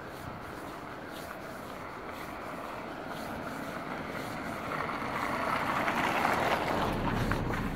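A car drives slowly past at close range. Its engine and tyre noise swells to a peak about six seconds in, then starts to fade. Light footsteps of someone walking go on underneath.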